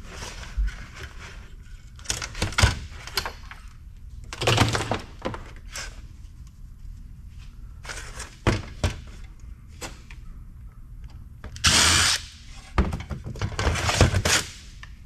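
Knocks, clatters and short scrapes of a small sheet-metal electronics box and pliers being handled and set down on a steel workbench, with a louder half-second rattle about twelve seconds in and another near the end.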